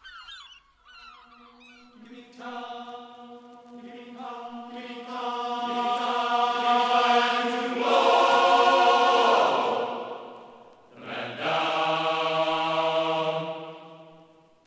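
Music of sustained choir-like chords that slowly build and swell. A second chord comes in about eleven seconds in and then fades out.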